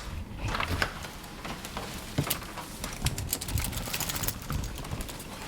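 Footsteps crunching through fresh snow: an irregular run of crisp crunches over a low rumble.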